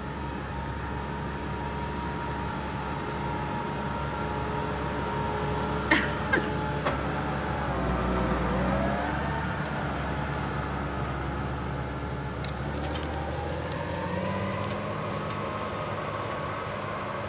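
New Holland T8 tractor's diesel engine running steadily as it pulls a ripper-bedder through the soil. The pitch falls as it passes close by about eight seconds in, and the engine tone rises again a few seconds later. Two sharp metallic clanks come about six seconds in.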